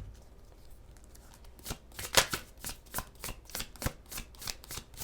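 Tarot deck being shuffled by hand: quick, uneven card strokes at about four a second, starting about one and a half seconds in.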